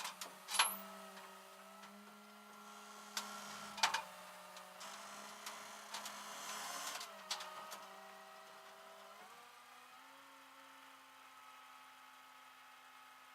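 A steady mechanical hum that shifts in pitch about nine seconds in, with a few sharp clicks and knocks in the first four seconds.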